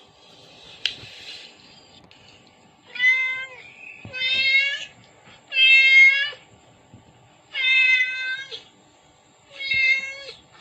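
A cat meowing five times, each a drawn-out meow a second or two after the last and all much alike in shape. There is a sharp click about a second in.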